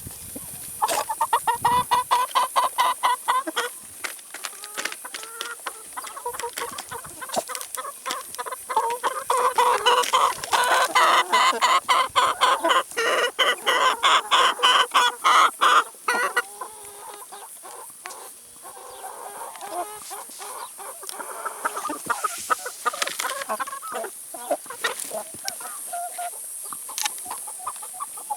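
Chickens clucking, with bursts of quick repeated clucks about a second in and again from about nine to sixteen seconds in, quieter scattered clucking between.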